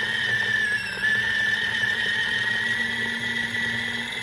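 Electric mini food chopper's motor running steadily with a high whine as its blade blitzes a thick marinade, the pitch dipping briefly about a second in and then edging slightly higher.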